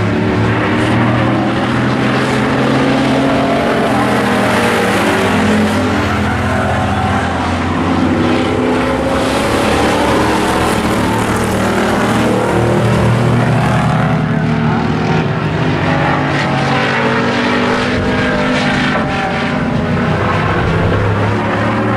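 Hobby stock race cars racing around an oval track, their engines running hard throughout, with the pitch rising and falling as they accelerate and lift.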